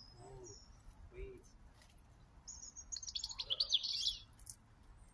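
Small songbird singing: a brief high whistle at the start, then about two and a half seconds in a fast, twittering phrase of high notes lasting about two seconds, the loudest sound here.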